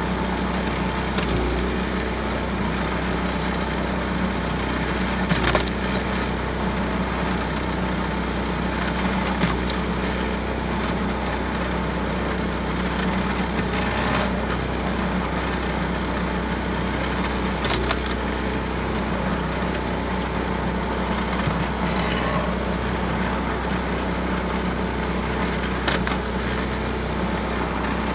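Small gas engine running steadily, driving a pitman-arm firewood splitter, with a sharp crack of wood splitting roughly every four seconds as the wedge goes through the log rounds.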